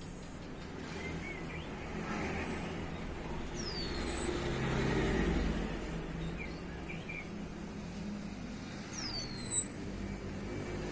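Orange-headed thrush (anis kembang) giving two high, sharp down-slurred whistles about five seconds apart, over a steady low background rumble.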